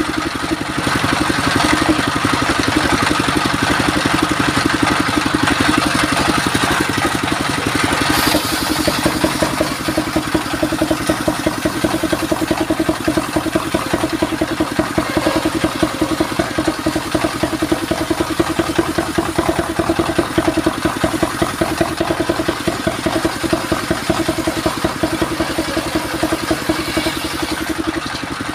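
Engine of a belt-driven circular sawmill running steadily with a fast, even pulse, while the saw blade rips mahogany boards.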